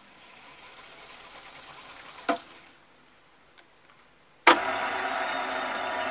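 Teac X-7R reel-to-reel tape deck being worked through its transport buttons. A hiss rises as the tape winds and stops with a click about two seconds in. After a short silence, another sharp click about four and a half seconds in starts playback, and recorded music comes from the deck.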